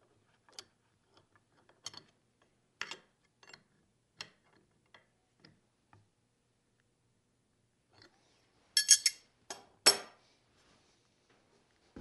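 Light metallic clicks of a wrench working the 1/2-inch collet nut of a plunge router, tightening a straight bit in place, with a few louder clacks of tool handling near the end.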